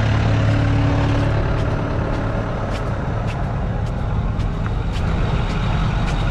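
A heavy vehicle's engine running steadily, with scattered short clicks.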